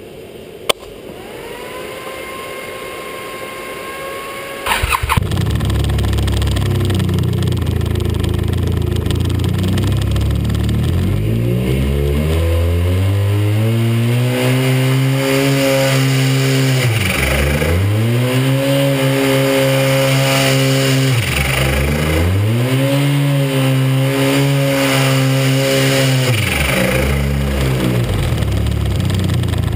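Arctic Cat 1100 turbo snowmobile engine, a turbocharged three-cylinder four-stroke, being started on a test bench. A quiet whine rises and holds for a few seconds, then the engine catches about five seconds in and idles. It is then revved up and held high, with the throttle snapped shut three times so the revs drop sharply and climb again, before it falls back to idle.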